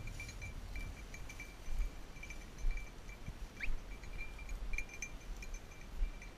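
Small bell on a hunting dog's collar tinkling in short, irregular jingles as the dog runs through the cover, over dull low bumps.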